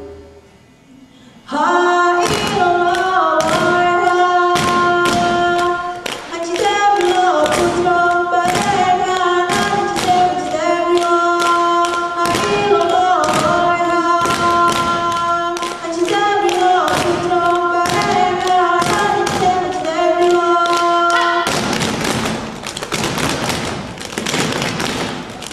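Saman dance: voices singing a chant-like melody in unison over a steady rhythm of hand claps and body slaps. A few seconds before the end the singing stops and the clapping and slapping turn into a dense, fast patter.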